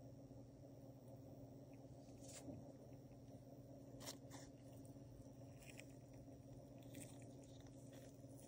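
Near silence over a steady low hum, with a few faint scratchy ticks and rustles from gloved fingers handling a silver coin.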